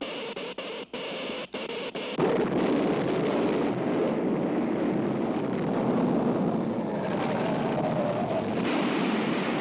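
Cartoon sound effects: a crackling buzz broken by short gaps, then, about two seconds in, a sudden loud, sustained rumble of the man-made earthquake.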